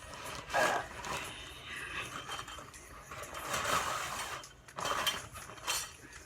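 Mannequin tripod stand being handled and folded, its parts clinking and rattling in a few short bursts.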